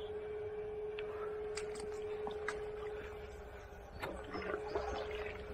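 Small stream ambience: faint running water and a low rumble, with a few light clicks of handling and a steady mid-pitched hum under it all.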